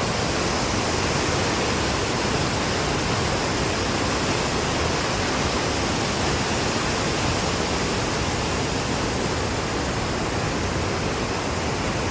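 Waterfall in monsoon flood, a steady loud rush of falling water with no change in level.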